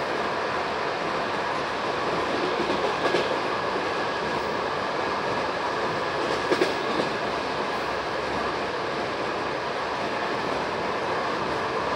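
Moving passenger train heard from aboard a coach: a steady rumble of wheels on the rails, with a few sharper clacks of the wheels over rail joints about three seconds in and again about six and a half seconds in.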